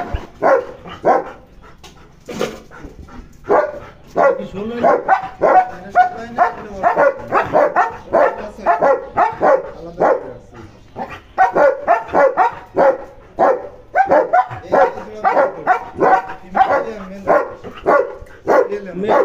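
A caged dog barking. After a few quieter seconds it barks steadily at about two barks a second, with a couple of brief pauses.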